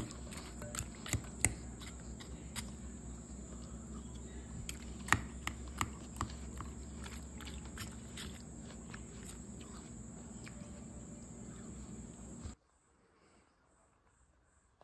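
A fork clinking and scraping against a glass bowl while pasta salad is stirred: scattered sharp clicks over a steady high-pitched background drone. The sound stops suddenly near the end.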